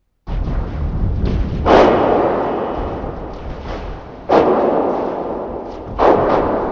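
Creature sound effect for a monster or alien: a dense, rumbling noise that starts abruptly and swells with three sudden heavy surges about two seconds apart, each fading back down.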